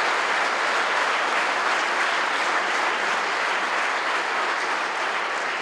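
Audience of delegates applauding steadily, a dense even clapping that begins to ease near the end.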